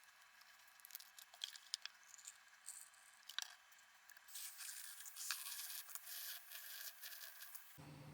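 Faint handling sounds of a protein drink being made up in a glass: light clicks and taps, then a soft steady hiss for about three seconds that stops abruptly near the end.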